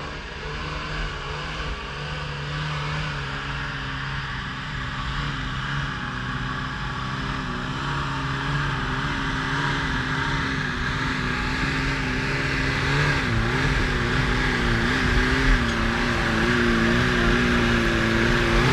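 Off-road 4x4's engine working hard under load, its pitch wavering up and down and the sound growing steadily louder.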